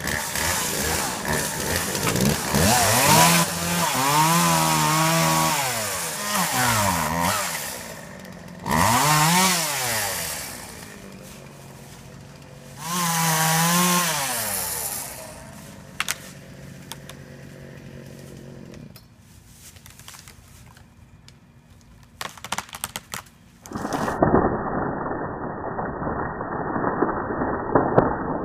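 Two-stroke chainsaw cutting into a dead tree trunk, revving up and falling back in three long bursts, then idling with scattered sharp cracks. In the last few seconds the sound turns to a dull, muffled rushing as the tree comes down.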